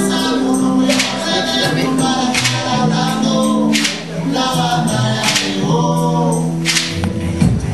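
Live salsa band playing: several voices singing together over a bass line, with sharp percussion strikes about once a second.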